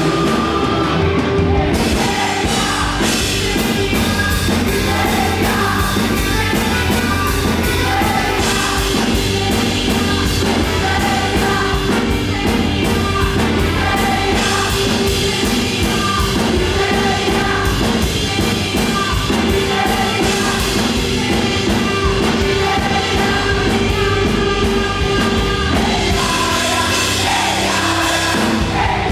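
Live up-tempo gospel praise music, with a group of voices singing over a driving, steady beat.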